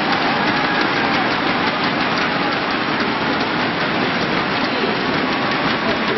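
Steady din of a large arena crowd: a dense wash of many voices with scattered clapping, no single sound standing out.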